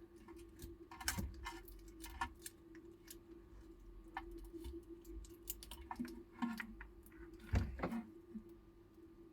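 Light, scattered clicks and taps of a small circuit board and wires being handled and pushed into an e-bike battery pack, with a couple of dull knocks about a second in and again near the end, over a faint steady hum.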